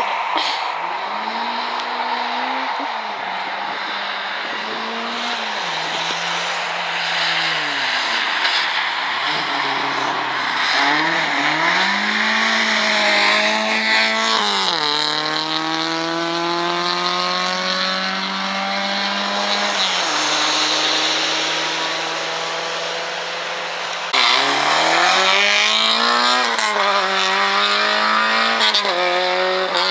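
Rally car engines driven hard: the pitch climbs, drops back at each gear change and climbs again as the cars accelerate past and away. There is a sudden cut to another car near the end.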